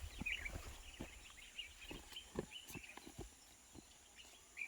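Footsteps on soft garden soil, a string of dull irregular thuds, with small bird chirps now and then and low wind rumble on the microphone that fades after about a second.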